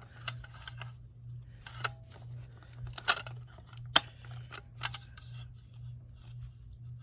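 Scattered sharp clicks and knocks of a Fire-Lite BG-12 SL fire alarm pull station being handled, over a steady low hum.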